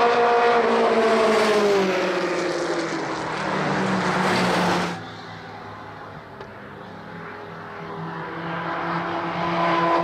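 Historic formula racing car engines at speed: a car passing close by, its engine note falling in pitch as it goes by, loud until it cuts off suddenly about halfway through. After that a quieter engine grows louder as other cars approach.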